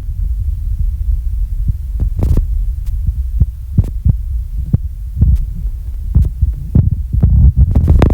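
A person snoring heavily: a loud, low, throbbing rumble with irregular clicking pops running through it.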